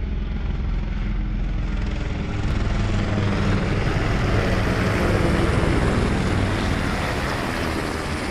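Two helicopters passing low overhead with a steady rotor chop. The sound swells as they come closest, about five seconds in, and fades slightly as they move on.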